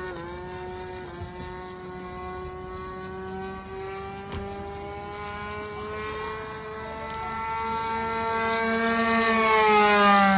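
DLE 20cc single-cylinder two-stroke gas engine of a radio-controlled model plane buzzing in flight, its pitch slowly rising as it grows louder on the approach. Near the end it passes close and the pitch starts to fall.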